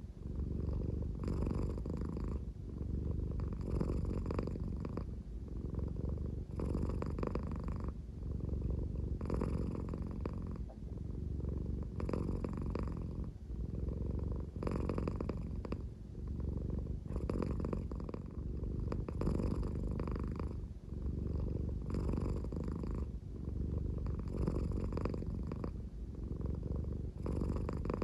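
American Shorthair cat purring slowly and steadily: a low, snore-like rumble that turns brighter and raspier every two to three seconds in time with its breathing.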